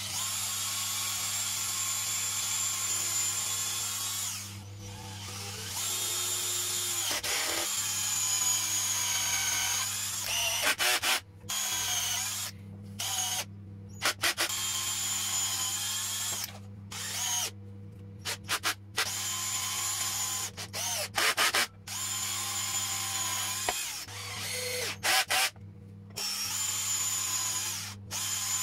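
Parkside cordless drill drilling holes and driving screws into particle board, its motor whining in long runs at first, then in many short bursts that start and stop with brief pauses between.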